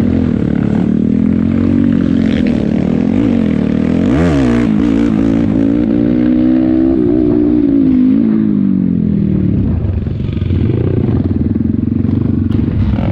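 Off-road dirt bike engine running under the rider, its pitch rising and falling with the throttle, with a quick rev about four seconds in and an easing off about ten seconds in.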